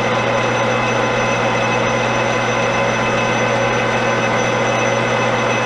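Metal lathe running steadily while taking a cut on a brass workpiece: an even motor hum and whine with several steady tones and no change in speed.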